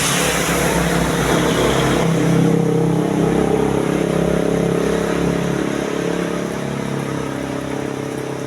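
Bus diesel engine running at a steady speed, with a hiss of road and traffic noise that eases after about three seconds.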